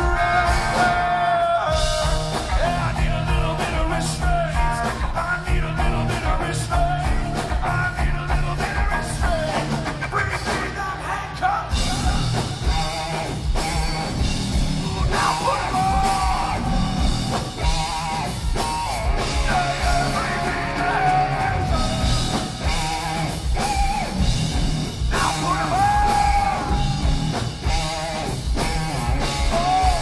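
Rock band playing live: a steady drum beat and guitar under a singer's voice.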